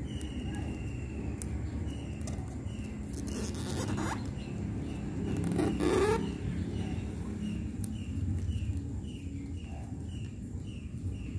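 Origami paper being folded and creased by hand, with two short scraping rustles about three and a half and six seconds in, the second the louder. A faint short chirp repeats about twice a second behind it.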